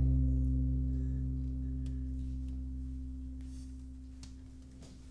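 The final chord of a son jarocho ensemble of jaranas, leona and accordion ringing out: the high notes are damped at once and the low notes fade slowly away.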